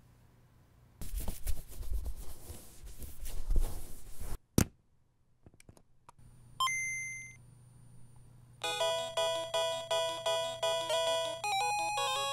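A rough rubbing noise for about three seconds, then a click. Next comes the Game Boy Color's short two-note rising startup chime, and from about the middle, chiptune-style video game music with quick, regular notes.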